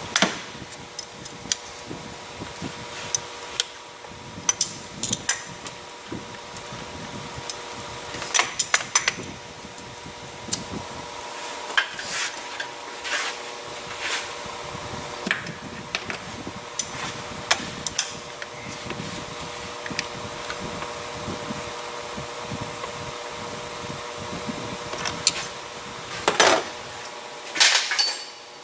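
Scattered sharp clicks and clanks of hand tools and parts being handled on a car engine, loudest in clusters about eight seconds in and near the end, over a steady fan hum.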